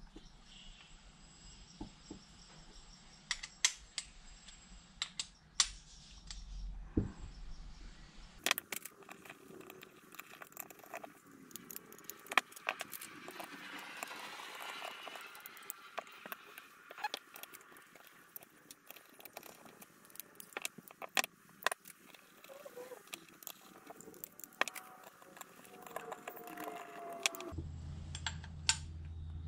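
Small metal parts and hand tools clinking and tapping irregularly as throttle-linkage pieces of an individual-throttle-body kit are handled and screwed down with Allen keys.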